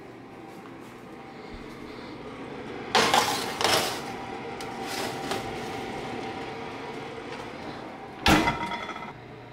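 Metal sheet pan of cut vegetables slid onto an oven rack with a metallic clatter about three seconds in, then a steady hum, and a loud clunk near the end as the oven door shuts.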